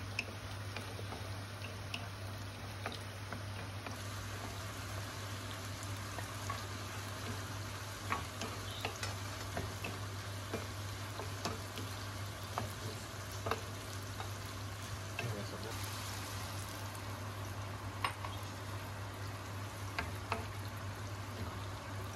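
Wooden spatula stirring and scraping a nonstick frying pan of sautéing canned mackerel, tomato, onion and chayote, over a steady sizzle. The spatula gives sharp taps against the pan here and there.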